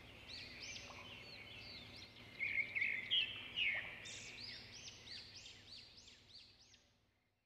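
Small birds chirping: many quick, repeated arching chirps overlapping one another, louder a little past the middle, then fading out to silence near the end.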